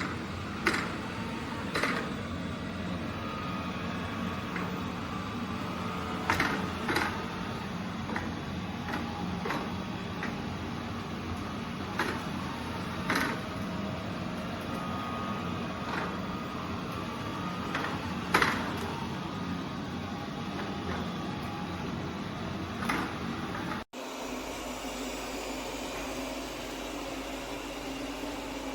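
Robot vacuum running with a steady motor and brush hum, broken by about a dozen sharp knocks. Near the end the sound cuts abruptly to a different, thinner steady whir.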